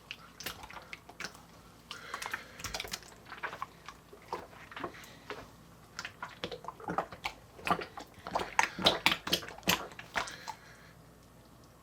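Homemade soda slime being squeezed, stretched and spread by hand: a run of wet clicks, crackles and small pops as air pockets burst, busiest about two-thirds of the way through and dying away near the end.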